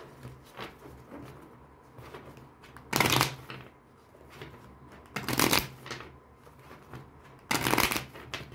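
A deck of Spanish playing cards being shuffled by hand: three short bursts of shuffling about two seconds apart, with quieter card handling between them.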